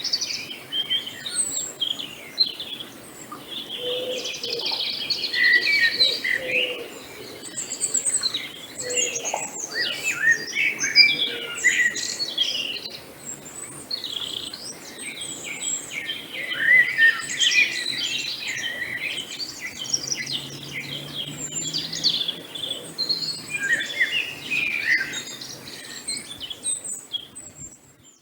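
A chorus of many songbirds chirping and singing at once, quick overlapping chirps, trills and whistles with no pause, fading out near the end.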